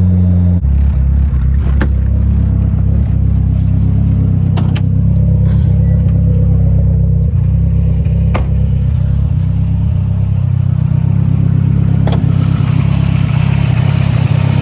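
Mitsubishi Lancer Evolution X's turbocharged four-cylinder engine running steadily under way. Its note changes about half a second in, and a few faint ticks sound over it.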